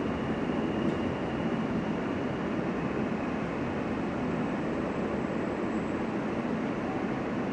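R160 subway car running into a station, heard from inside the car: a steady rumble of wheels and motors as the train slows alongside the platform, with a faint high whine early on.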